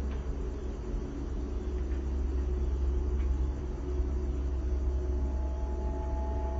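A vehicle running, a steady low rumble with no distinct events. Sustained music tones fade in about five seconds in.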